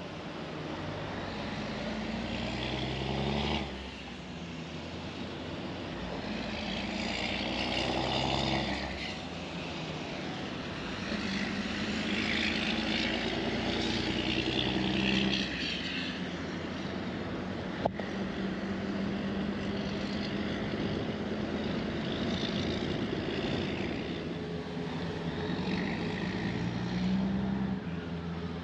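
Vehicle engine pulling away and accelerating through the gears, its pitch climbing and dropping back at each shift, over steady road noise. There is one sharp click about two-thirds of the way in.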